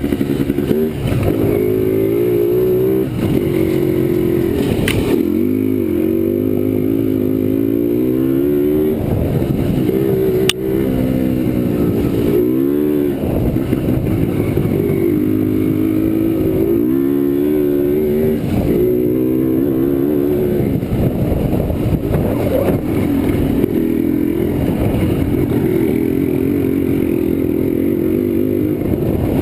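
Yamaha Blaster's single-cylinder two-stroke engine revving as the quad is ridden over a dirt trail, its pitch climbing and dropping again and again with the throttle and gear changes. A sharp knock comes about ten and a half seconds in.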